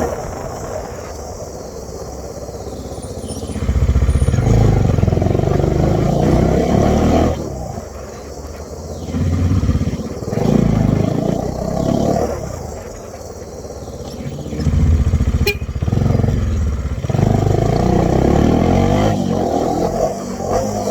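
Bajaj Dominar 400 motorcycle's single-cylinder engine revved repeatedly, swelling to several loud surges and dropping back toward idle between them.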